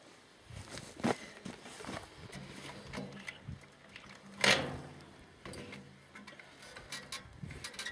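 Clicks and knocks of handling work and tools in a pause between drilling runs, the drill itself silent, with a faint low hum in the middle and one sharper knock about four and a half seconds in.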